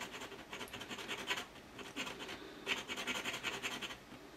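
Flat file rasping back and forth across a thin N gauge rail filled with soft solder, filing the solder down until the rail's web shows through. The strokes come in quick runs with brief pauses.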